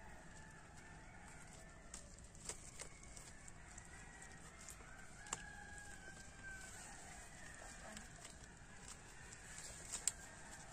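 A rooster crowing faintly, one drawn-out call about five seconds in, with a few sharp clicks and snaps over a quiet rural background, the loudest near the end.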